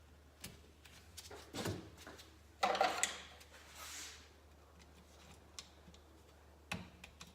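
Metal tab and clutch cable fitting being worked by hand on a motorcycle engine case: scattered small clicks and knocks, with a short scrape about three seconds in.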